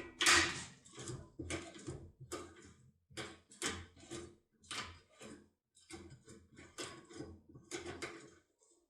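Metal lock-working tools clicking and knocking against a lock cylinder, in irregular sharp strikes about two a second with short gaps, the loudest just after the start.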